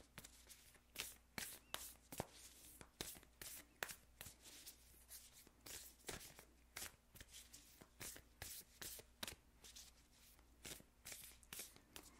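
A deck of oracle cards being shuffled by hand: faint, irregular flicks and slides of cards against each other, a few a second.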